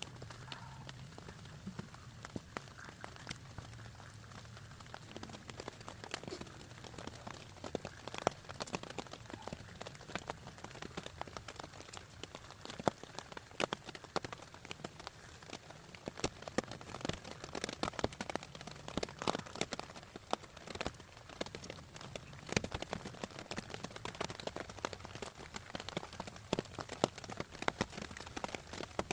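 Rain falling steadily, with many sharp, irregular drop strikes close by.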